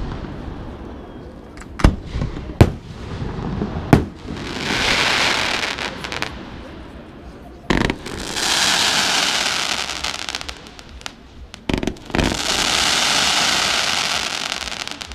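Fireworks display: a series of sharp bangs from bursting shells, with long stretches of hiss from rising comets and falling stars in between.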